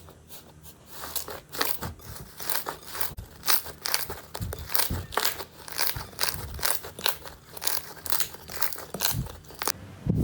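Slime being squeezed and pressed by hand, giving a run of short crackling crunches, a few a second.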